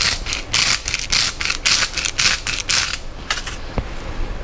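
Sea salt being ground from a grinder: a run of gritty crunching strokes, about three a second, that stops about three seconds in, then a single click.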